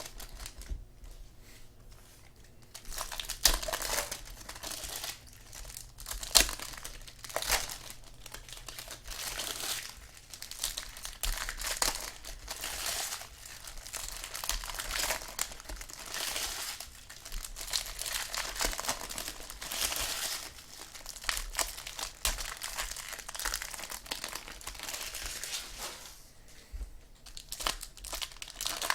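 Foil trading-card pack wrappers crinkling and tearing as packs are opened and the cards handled, an irregular rustling with sharp crackles, quieter for the first few seconds and again briefly near the end.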